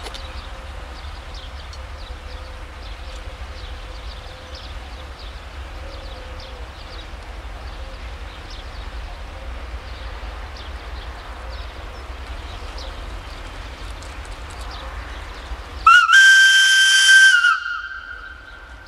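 Electroputere LDE2100 diesel-electric locomotive sounding one loud blast of its air whistle near the end, a single high tone with a strong hiss, lasting about a second and a half and cutting off sharply, over a steady low rumble.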